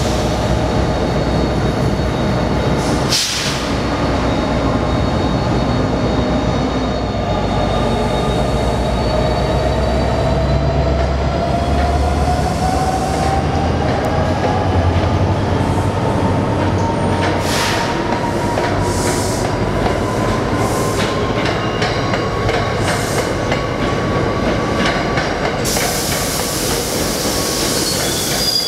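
Passenger trains running through the station. An NJ Transit diesel-hauled train makes a steady loud rumble, with sharp clicks of wheels over rail joints and a slowly rising whine. A high-pitched wheel squeal comes in near the end.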